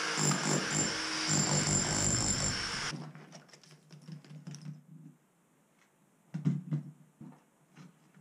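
Electric demolition hammer chiselling into brickwork, running for about three seconds and then stopping abruptly. Then scattered knocks and clinks of loose brick pieces being pulled out and handled, loudest in a cluster about six and a half seconds in.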